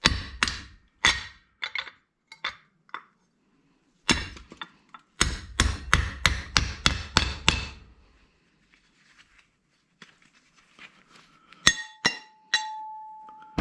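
Hammer blows on a steel punch driven into a hard drive's metal casing: a string of sharp metallic clanks, spaced at first, then a quick run of about eight, then a few last strikes near the end followed by a ringing metal tone as the part comes loose.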